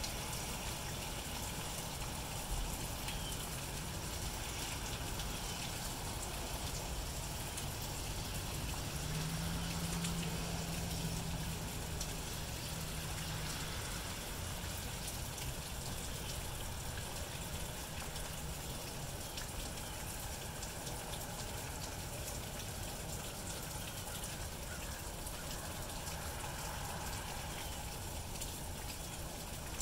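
Steady light rain falling on grass and pavement: an even hiss with the fine patter of drops. A low steady hum rises under it for a few seconds about nine seconds in.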